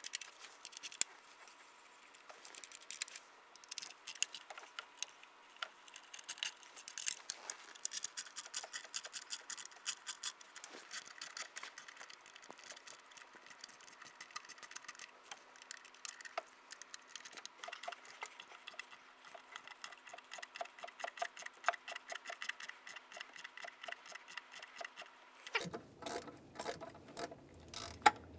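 Hand ratchet with an 8 mm socket clicking in quick runs as the intake bolts are loosened. A few louder knocks come near the end.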